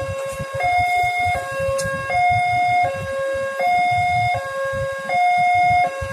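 Railway level-crossing warning alarm sounding its two-tone electronic signal, alternating a higher and a lower tone about every three-quarters of a second. It signals that a train is approaching and the crossing is closed. A low rumble of traffic sits underneath.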